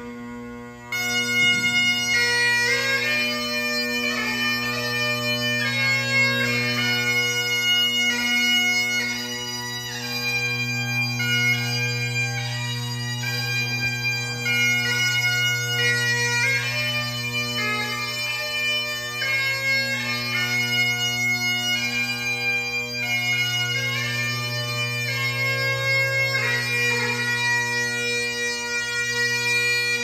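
Great Highland bagpipe playing a tune: steady drones underneath, with the chanter melody coming in loud about a second in.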